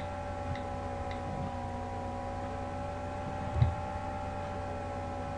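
A few soft clicks from an iPhone's on-screen keyboard as a word is typed, with a duller thump about three and a half seconds in. A steady hum of several constant tones runs underneath.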